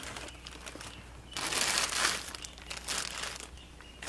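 Clear plastic parts bag crinkling as a gloved hand handles it and lifts it from a cardboard box, in a louder stretch from about a second and a half in and a shorter one near three seconds.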